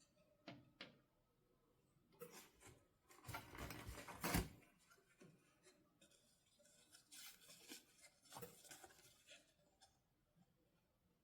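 Quiet handling of toy packaging: two soft clicks, then stretches of rustling and rubbing with a sharper knock about four seconds in, and more light rustling later.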